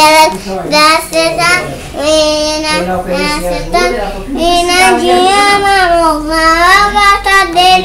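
A young girl singing a song solo without accompaniment, her voice gliding between notes and holding long notes in the second half.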